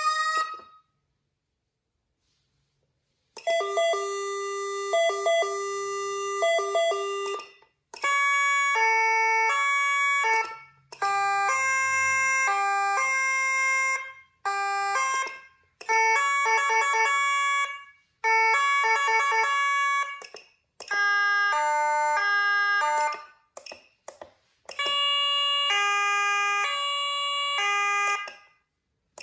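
Whelen CenCom Sapphire electronic siren being run through its tones. A fast sweeping tone cuts off in the first second. After about three seconds of silence, a string of different tone patterns follows, each a few seconds long, that jump between fixed pitches like a two-note hi-lo or a chime rather than gliding, with short breaks as it switches from one tone to the next.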